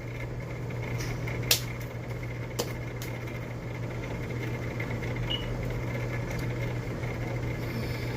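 Microwave oven running a 30-second heating cycle, a steady low hum from its fan and turntable motor while candy melts inside. A couple of short clicks sound about a second and a half and two and a half seconds in.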